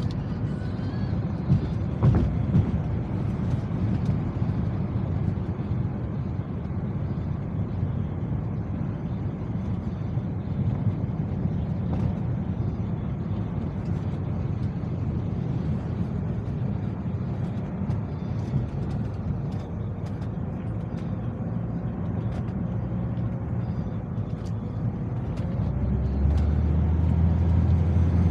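Car engine and tyre noise heard from inside the cabin while driving, a steady low rumble. Near the end the engine drone grows louder and lower.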